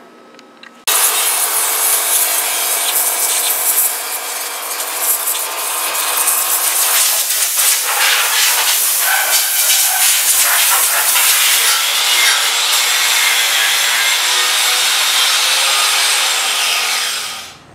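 Handheld power tool scouring paint off a steel tractor part. It is a continuous abrasive rasp that starts abruptly about a second in and cuts off near the end.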